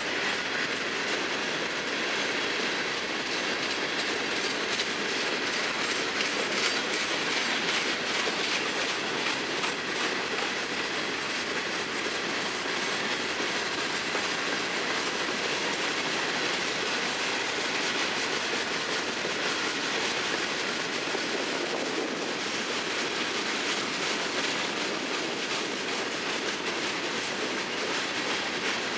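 Freight train of steel hopper cars rolling past at steady speed: a continuous clatter of steel wheels on the rails, with fine rapid clicking and no horn.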